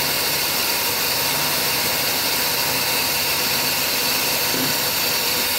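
Mercedes-Benz 560SL's 5.6-litre V8 idling steadily while warming up from cold, with a steady hiss over it.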